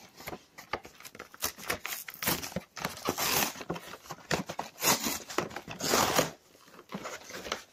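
Clear plastic blister packaging and its cardboard backing card being handled and pulled apart: crinkling, crackling plastic with a tearing rustle, loudest about three, five and six seconds in.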